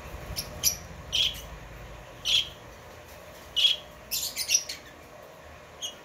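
Rosy-faced lovebirds giving short, high-pitched chirping calls, about eight in all, with a quick run of three about four seconds in.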